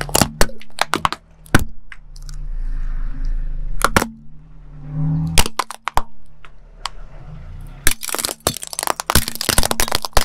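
A car tyre crushing painted coconut shells: a series of sharp cracks as the shells break, over a low steady engine hum. Near the end the cracks come thick and fast as plastic toys snap and crunch under the wheel.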